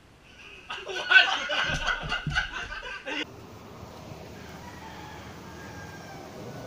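A group of men laughing loudly in a burst that cuts off abruptly about three seconds in, followed by a faint, steady background noise.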